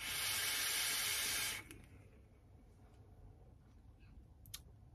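Mechanical vape mod with a rebuildable dripping atomiser fired and drawn on: a steady hiss of air rushing through the atomiser and over the wetted coil, lasting about a second and a half and then cutting off sharply.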